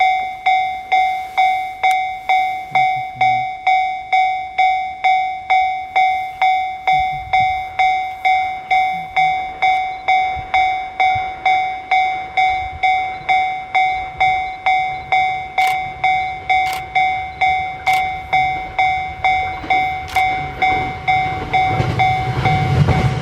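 Japanese level crossing warning bell ringing steadily, about three strikes every two seconds, each one ringing out, signalling an approaching train. Near the end the rumble of the approaching E657 series express train swells beneath it.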